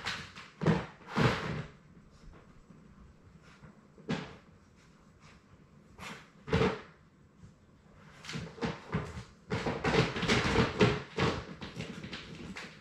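Labrador puppies moving about their pen, making a series of irregular knocks and clatters: a few in the first second, single ones about four and six and a half seconds in, then a busy run near the end.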